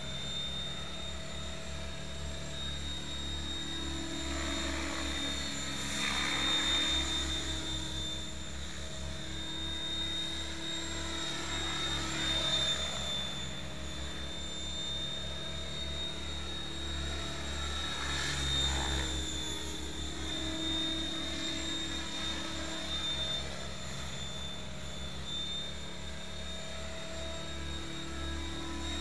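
Mikado Logo 600 electric RC helicopter flying: a steady high whine from its motor and rotors, with the rotor sound swelling and fading several times as it manoeuvres and passes by.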